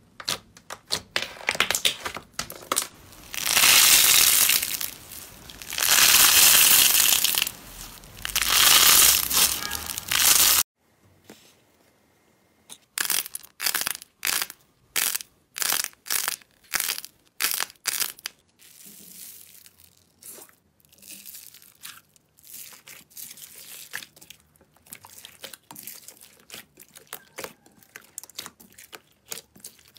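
Hands squeezing and pressing slime: wet, crackling squelches as trapped air is squeezed out, loudest in three long presses in the first ten seconds. After a brief near-silent gap there is a run of sharp pops, about two a second, as small shiny balls are squeezed. Then come softer, quicker crackles as thick slime studded with small beads is folded.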